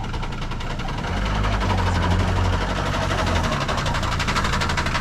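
A motor vehicle's engine running with a rapid, even pulsing, growing louder about a second in as it draws close.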